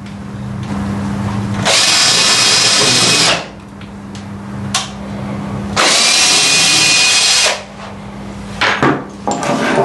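Electric power drill boring into wood in two bursts of about two seconds each, over a steady low hum. A few light knocks come near the end.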